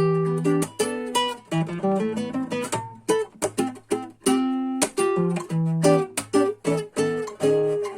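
Rodriguez RC 644 MN classical guitar with Hannabach 500HT high-tension nylon strings, played as a quick run of plucked notes with lower bass notes ringing underneath.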